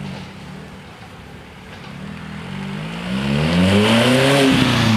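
Small hatchback car's engine accelerating toward and past, rising in pitch and growing louder, then briefly cutting and settling lower about four and a half seconds in as it changes up a gear.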